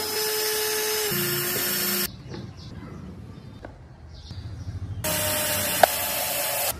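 Cordless drill driving screws into wood, in two runs: the first from the start to about two seconds, its motor pitch stepping down about a second in, the second from about five seconds to near the end. Between them come quieter clicks of the wooden parts being handled.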